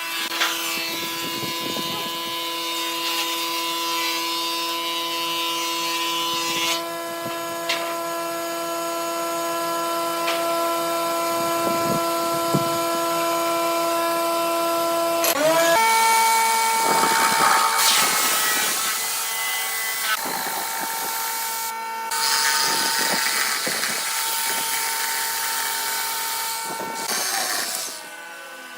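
Electric power tool motor running with a steady whine, with ragged cutting noise as it works wood. Its pitch steps up about a quarter of the way in and glides higher about halfway, then the sound dies down near the end.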